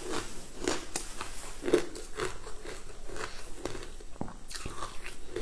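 A person chewing a crunchy, crumbly food close to the microphone, with sharp crunches about twice a second.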